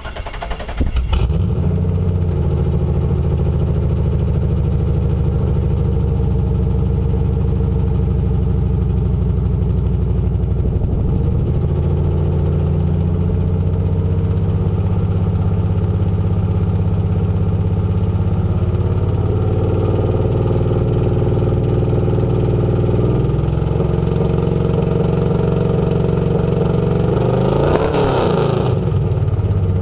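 LT1 small-block V8 running through long-tube headers and dual Flowmaster mufflers with no catalytic converters, held at steady engine speeds that step up a few times, with a quick rev up and back down near the end. It runs with a steady misfire that persists despite a new Opti distributor, plugs and wires.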